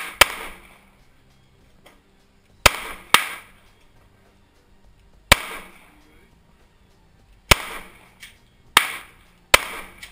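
Pistol shots fired one at a time at an uneven, slow pace, seven in all, including a quick pair about three seconds in. Each sharp crack is followed by a short echo that dies away within about a second.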